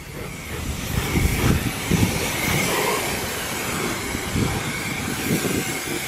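Pressure-washer wand spraying water onto a car at about 1,100 PSI, a steady hiss with a faint steady whine from the rinse machine's pump underneath. A few low thumps come in the first couple of seconds.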